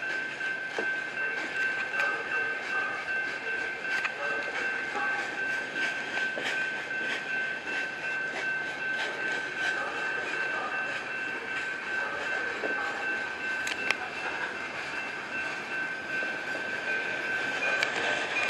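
Freight train rolling past on the adjacent track, its wheels clattering rhythmically over the rails, with a steady high-pitched ring throughout. It grows louder near the end as another train approaches.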